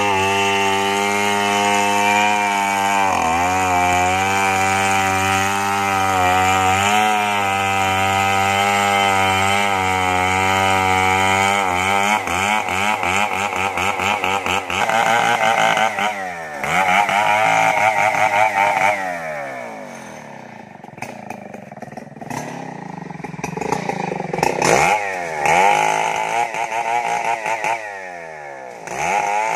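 Large two-stroke chainsaw cutting into a merbau trunk at full throttle, its engine note steady for about twelve seconds with brief dips under load. It then revs up and down repeatedly, falls to a lower, quieter run for a few seconds, and picks up again near the end.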